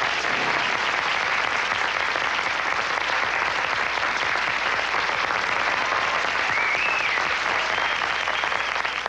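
Crowd of wedding guests applauding, a dense and steady clapping.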